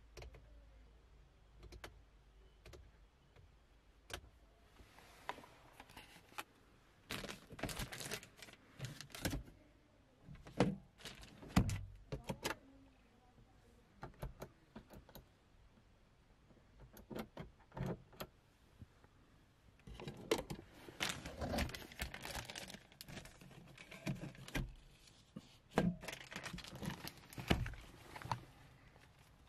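Clicks, knocks and light rattles of a Mahindra XUV300's plastic interior fittings being handled inside the car's cabin. They come in two bunches, one about a third of the way in and one over the last third, with quiet stretches between.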